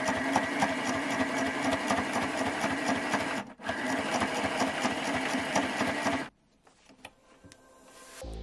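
Kylinton mini electric sewing machine stitching through two layers of denim, its needle running in a fast, even rhythm without stalling. It pauses briefly about three and a half seconds in and stops a little after six seconds, leaving only a few faint clicks.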